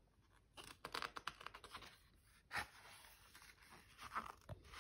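Paper pages of a hardcover picture book being turned and handled: faint rustling and brushing of paper, with a sharper swish of the turning page about two and a half seconds in.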